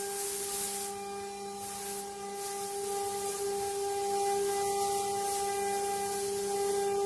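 CNC wood carving router running: a steady spindle whine with the hissing noise of the bit cutting wood, which thins out for moments and comes back.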